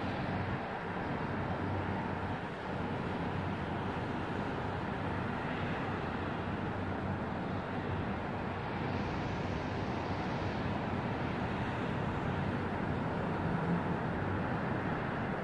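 Continuous low rumbling from a thunderstorm: distant thunder rolling steadily, with no single sharp clap.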